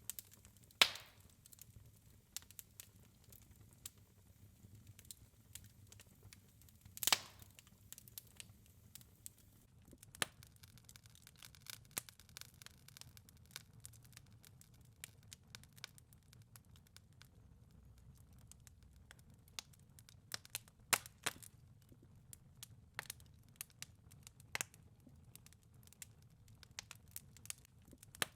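Wood fire crackling in a fireplace: a steady scatter of small snaps and ticks, with two louder pops, about a second in and about seven seconds in.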